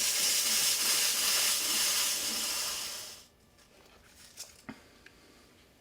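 Hunter ceiling fan motor under test on its high-speed (red) wire, running with a loud, steady hiss that stops suddenly about three seconds in, followed by a couple of light clicks.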